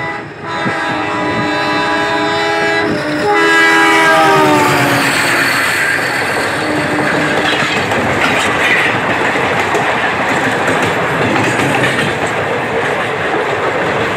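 A passing Indian Railways train: the locomotive's horn sounds a long chord, falling in pitch about four seconds in as the engine goes by, then the steady noise of the passenger coaches running past on the rails.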